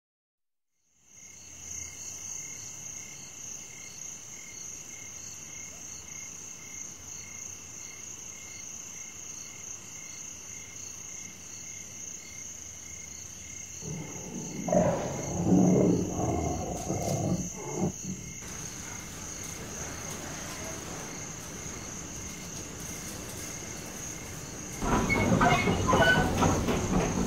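Savanna sound bed of insects chirping steadily at a high pitch. About halfway through, a large animal roars loudly for a few seconds. Near the end, a train runs past with a rattling, clattering sound.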